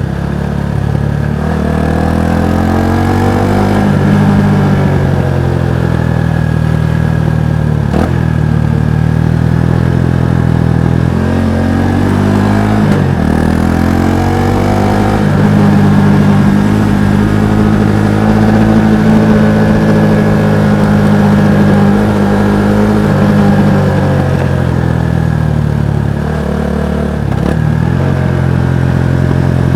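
Kawasaki Estrella's single-cylinder four-stroke engine and exhaust under way, revving up and falling back several times as it goes through the gears, then holding a steady speed for a while in the middle.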